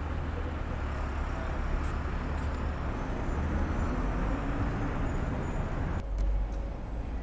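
City street ambience: the steady low rumble of road traffic, with a sudden shift in the rumble about six seconds in.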